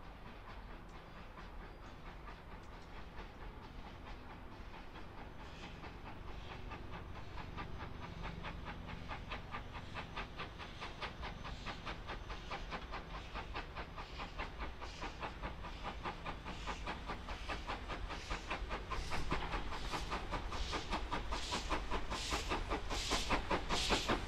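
GWR Saint class 4-6-0 steam locomotive 2999 'Lady of Legend' working a train, its exhaust a rapid, even chuffing that grows steadily louder as it approaches.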